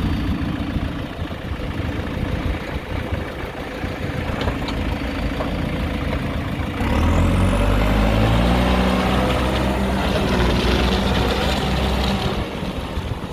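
JCB 3CX backhoe loader's diesel engine running at idle, then rising in revs and loudness about seven seconds in, held there for about five seconds and dropping back near the end.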